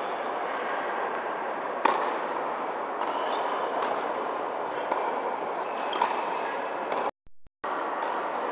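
Tennis balls struck by racquets on an indoor court: a few sharp pops a second or more apart, the loudest about two seconds in, over a steady hum of room noise. The sound cuts out for half a second near the end.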